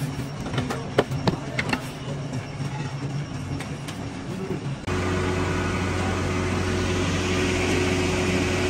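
Steel moulding flasks being handled, with a few sharp knocks and clinks of metal on metal. About five seconds in, the sound cuts abruptly to a steady machine hum with a constant low drone and a steady higher tone.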